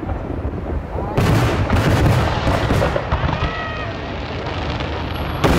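Aerial fireworks shells bursting overhead: a cluster of sharp bangs with crackling from about a second in, over a steady low rumble, and another sharp bang near the end.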